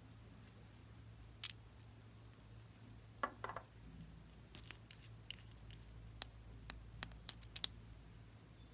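Small nail polish bottles handled and the cap twisted off one of them: scattered sharp clicks and taps, most of them in a quick run in the second half, over a faint steady hum.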